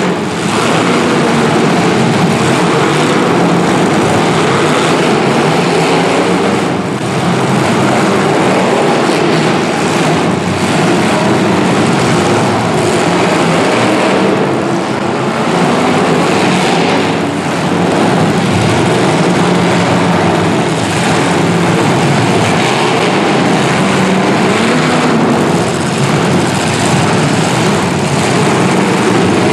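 Several 1980s full-size stock cars' engines running and revving hard together in a demolition derby, a loud continuous din with a few faint knocks from the cars hitting.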